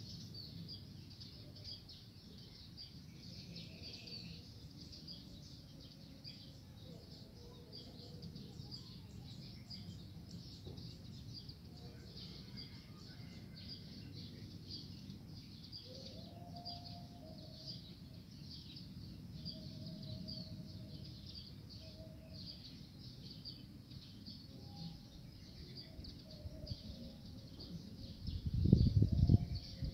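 Spotted doves cooing faintly in several short low phrases in the second half, over a steady high drone of insects. Near the end comes a brief loud low rumble.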